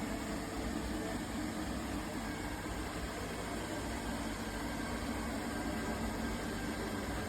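Robot vacuum running: a steady motor whir with a hiss of suction and brushes, unbroken throughout.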